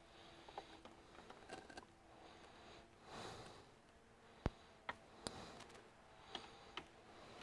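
Near silence broken by faint, scattered clicks and taps of the all-in-one's plastic housing being handled and pressed into place, the sharpest about four and a half seconds in. A short soft breath of noise comes about three seconds in.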